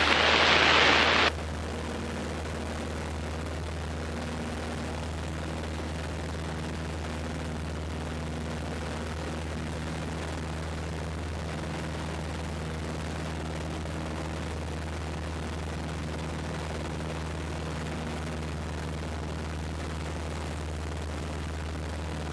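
A loud burst of radio static cuts off about a second in. After it comes the steady drone of the Piper PA-17 Vagabond's Continental A-65 engine and propeller, heard from inside the cabin at what is likely takeoff power.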